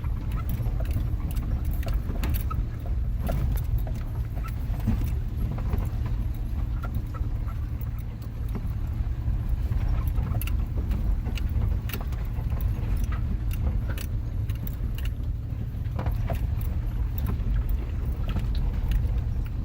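Off-road vehicle crawling slowly over a rocky mountain trail: a steady low engine and drivetrain rumble with frequent clicks and rattles.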